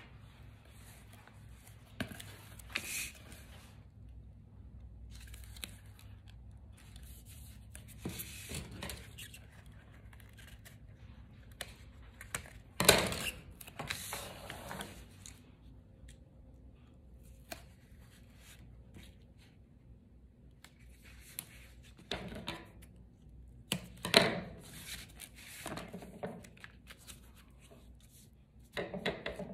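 Foam tape and cardstock being handled: scattered short tearing, snipping and rustling sounds, the sharpest about halfway through and again later on.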